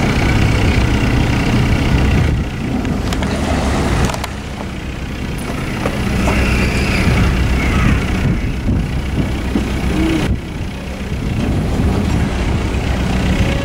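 Narrowboat's diesel engine running steadily at low revs as the boat moves slowly through the lock.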